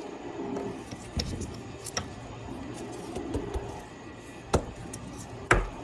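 Small plastic parts being handled, giving a few sharp clicks and taps, the loudest two near the end.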